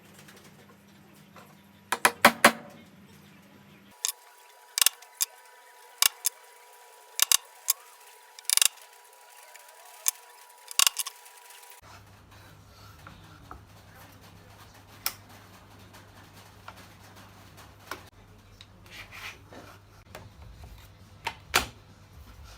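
Scattered sharp taps and clicks from hand-tool work on wood, some in quick clusters and others single, with quiet between.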